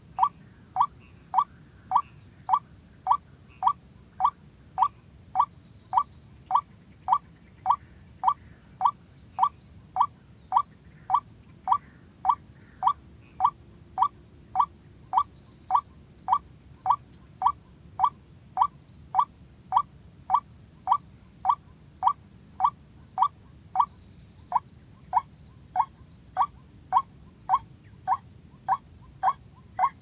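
White-breasted waterhen's call: short rising notes repeated evenly a little under twice a second, without a break.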